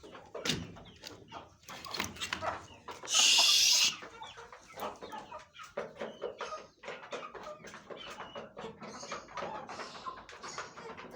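Chickens clucking amid many short clicks and scratches. About three seconds in, a loud hiss-like rush of noise lasting nearly a second is the loudest sound.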